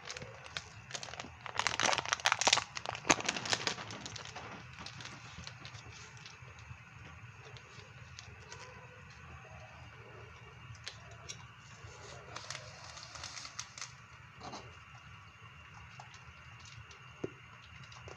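A sachet of sinigang mix crinkling as it is torn open and handled, loudest in the first few seconds. After that comes a faint steady hiss with occasional small pops and ticks from the pot of soup simmering on the gas stove.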